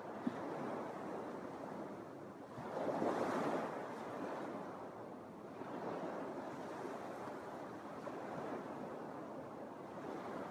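Small Lake Michigan waves washing onto a sandy beach, a steady wash that swells and ebbs, with one louder wave breaking about three seconds in. A brief click sounds near the start.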